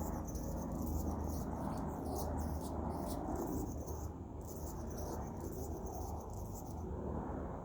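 Hummingbird calling: rapid, irregular, very high-pitched squeaky chips and buzzes that stop about seven seconds in, over a steady low hum.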